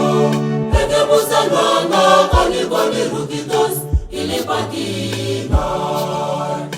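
Church choir singing over sustained low instrumental notes, with a low drum beat about every second and a half.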